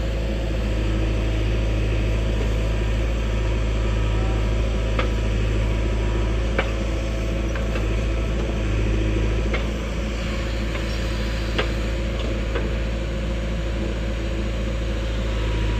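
Heavy diesel machinery running steadily at a loading site, its engine drone unbroken, with a few sharp metallic knocks scattered through.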